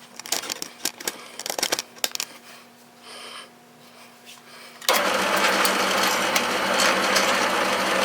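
Light clicks and knocks of small tools or wood pieces being handled, then an electric power tool's motor starts suddenly about five seconds in and runs loud and steady for about three seconds before cutting off near the end.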